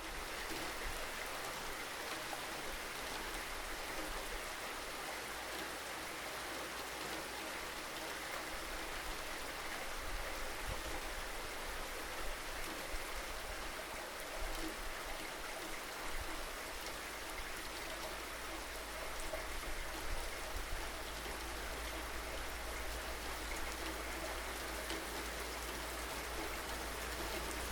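Steady rain falling, an even hiss with a few slightly louder moments, over a low rumble.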